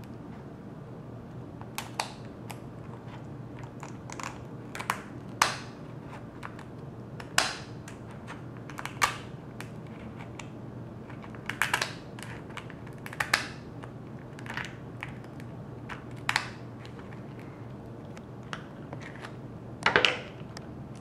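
Kitchen shears cutting through the hard shell of raw lobster tails: a series of sharp crunching snips at irregular intervals, with a longer, louder crunch near the end. A steady low hum runs underneath.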